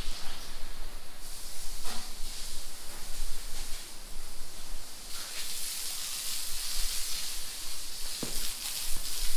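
Steady, fluctuating hiss of the concrete shop floor being cleaned, with a few faint clicks and knocks.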